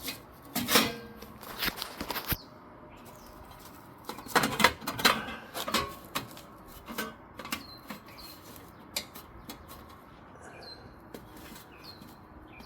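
A bent piece of thin sheet metal being handled and tried in place against a garage door's trim and rail: irregular metallic taps, clanks and scrapes.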